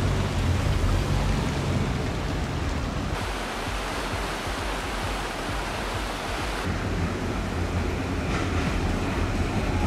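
Steady rushing of the Plessur, a fast, shallow mountain river running over stones. A deep rumble sits under it in the first three seconds and again from about seven seconds in.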